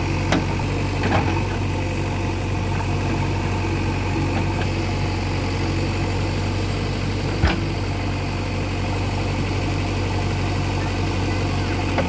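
JCB 3DX backhoe loader's diesel engine running steadily while the backhoe works, with a few sharp knocks, the loudest about seven and a half seconds in.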